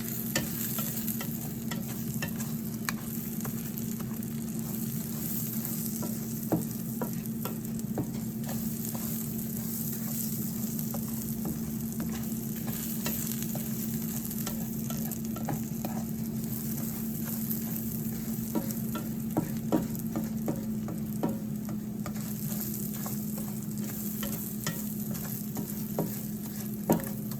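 Rice-A-Roni (rice and vermicelli) sizzling as it toasts in butter and oil in a pan, stirred with a utensil that clicks against the pan now and then, loudest near the end. A steady low hum runs underneath.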